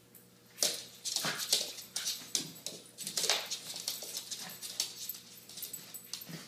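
Small dogs play-fighting: a run of short growling and yipping bursts that begins about half a second in.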